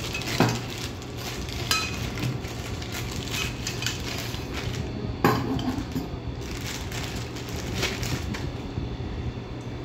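Clear plastic wrapping crinkling as it is handled and pulled off the black metal tubes of a basketball stand, with metal clinks and knocks as the tubes bump together; the sharpest knocks come about half a second in and about five seconds in.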